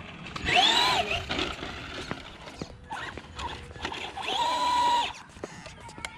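Electric motor of a Traxxas short-course RC truck whining as it is driven. The pitch rises and falls as it speeds up and slows down about half a second in, then holds steady for about a second near the four-second mark. A few short knocks come from the truck bumping over the ground.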